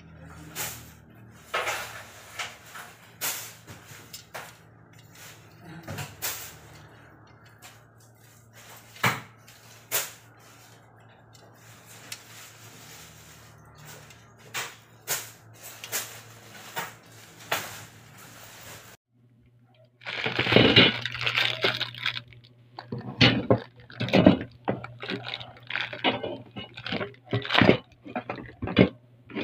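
Scattered clicks, knocks and clinks of a steel TV wall-mount bracket being handled, with denser, louder clattering after a short break about two-thirds of the way through.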